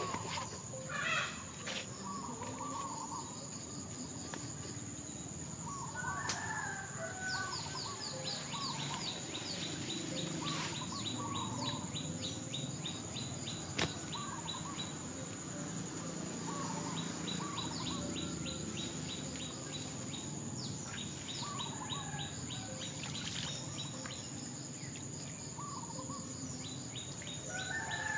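Wild birds calling outdoors, with short warbled phrases repeated every few seconds and runs of fast, even, high-pitched ticking. A steady high whine runs underneath.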